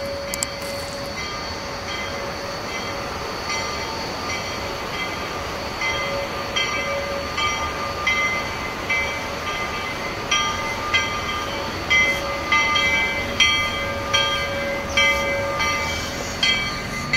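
Steam locomotive's bell ringing steadily, about two strokes a second, growing louder as the engine draws nearer.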